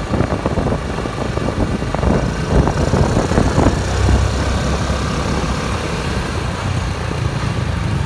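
Road traffic from inside the flow of vehicles: a steady low engine hum with road noise, and a louder, rougher stretch about two to four seconds in.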